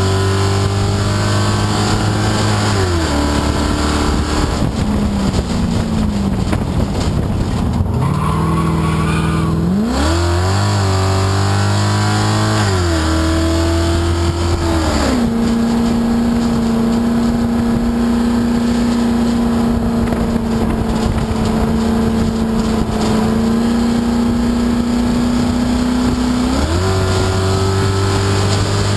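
Race car engine heard from inside the roofless cockpit, running hard: the engine note drops about three seconds in as the driver lifts and slows for a corner, climbs again around ten seconds under acceleration, holds one steady pitch for about ten seconds, and rises again near the end. Wind and road noise rush through the open cabin throughout.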